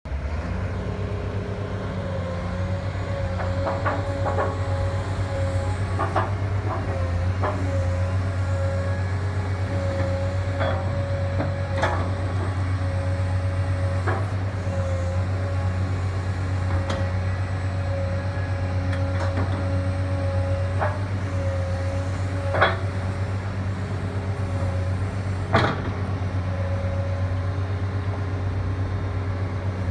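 Diesel engine of a 2008 Cat M316D wheeled excavator running steadily while the boom and bucket are worked, with a hydraulic whine coming and going. Occasional metal clanks are heard, with two louder knocks near the end.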